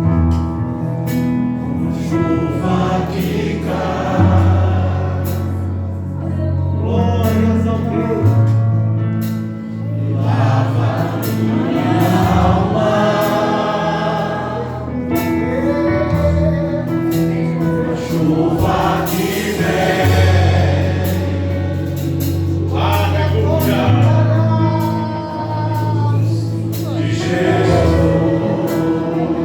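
Gospel song sung by a men's choir over instrumental accompaniment with sustained bass notes.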